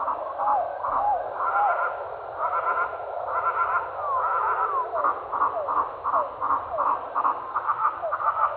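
A forest dawn chorus of songbirds, slowed down several times and so lowered in pitch: rows of quick repeated notes and short downward-sliding calls that come out deep and throaty, almost frog-like.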